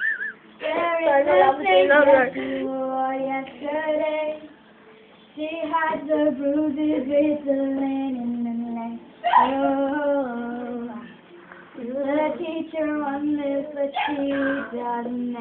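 A girl singing unaccompanied, in phrases with held notes, pausing briefly a little under five seconds in and again around eleven seconds.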